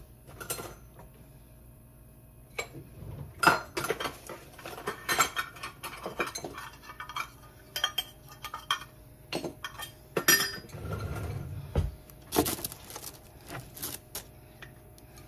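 Kitchen utensils clinking and knocking against dishes and cookware in a long run of irregular, sharp clinks, with a brief low thud about two-thirds of the way through.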